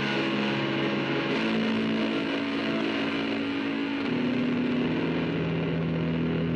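Instrumental music on the soundtrack: sustained, distorted electric guitar chords drenched in effects, moving to a new chord about a second and a half in and again about four seconds in.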